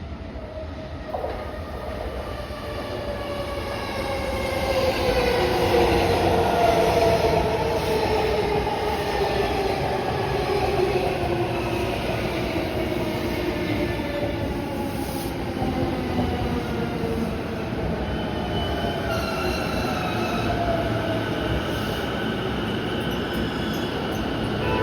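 JR East E233 series 0 electric commuter train pulling into a station and braking: a whine from its inverter-driven traction motors falls steadily in pitch as it slows, over the rumble of its wheels on the rails. Higher squealing tones come in over the last few seconds as it nears a stop.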